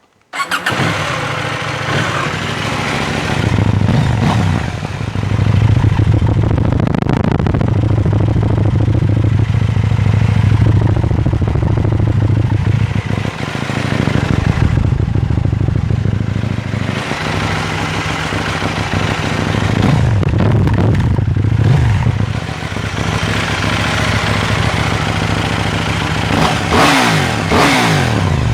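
KTM 790 Duke's parallel-twin engine through its stock exhaust, firing up about half a second in and then idling. It is revved in several short blips, the last one near the end rising and falling sharply.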